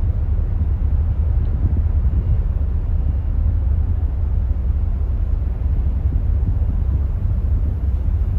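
Steady low rumble aboard an arriving passenger ferry, the Stena Nordica, with wind buffeting the microphone.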